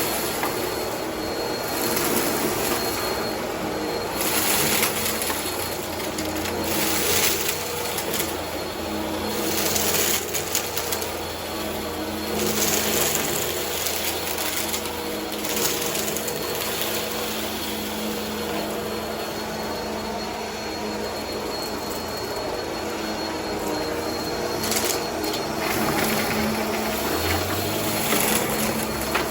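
Vacuum cleaner running steadily over carpet, with irregular crunching and rattling as debris is sucked up through the head.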